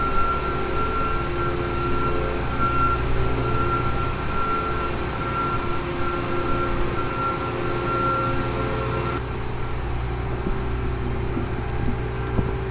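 Combine harvester's diesel engine running steadily, heard from inside the cab while the machine drives, with a thin high whine that stops about nine seconds in.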